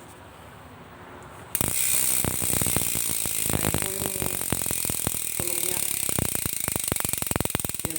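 Mountain bike hub freewheeling, its ratchet clicking rapidly as the wheel spins, starting about one and a half seconds in. The clicks grow more separate toward the end.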